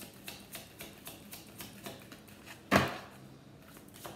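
A deck of tarot cards being shuffled by hand, overhand, in quick soft clicks about four a second. About two-thirds of the way through there is one much louder knock, then the shuffling pauses briefly and starts again near the end.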